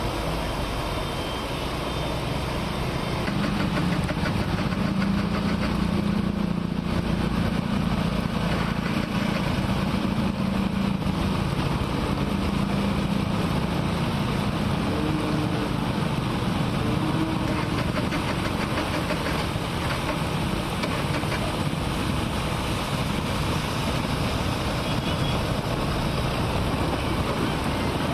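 Heavy rain falling and motor vehicles driving through floodwater on a street, with a steady rush of rain and water. An engine's low drone is strongest from a few seconds in until about halfway through.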